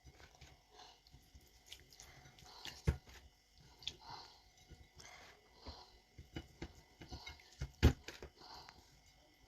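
Bare hands mixing oil and seasoning into cut chicken pieces, with soft wet squelches and two louder knocks, about three and about eight seconds in.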